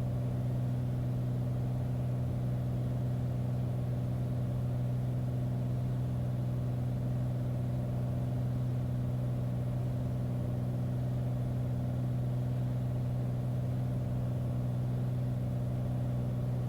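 Steady drone of a light airplane's piston engine and propeller heard inside the cockpit during a final approach, holding an even pitch with no change in power.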